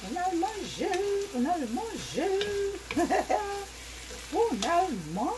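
Mixed vegetables sizzling in a wok as they are stirred with a wooden spoon, with a voice over the frying.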